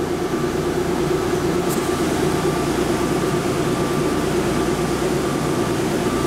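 Steady hum and hiss inside an automated people-mover car, from the car's air-conditioning and equipment running, with a constant low drone and a faint steady whine.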